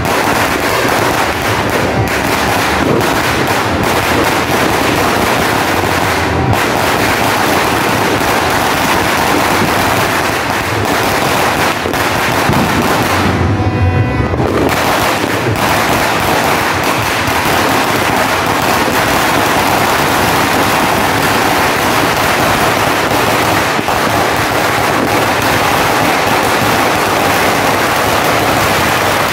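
A long sinturon ni Hudas (Judas' belt) string of firecrackers burning on the ground, giving a continuous rapid crackle of small bangs. The crackle thins out briefly about halfway through.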